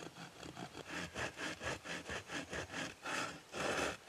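Small hand saw cutting a notch across a wooden crossbow stock made from deadwood, in quick back-and-forth strokes about three or four a second that become longer and louder near the end.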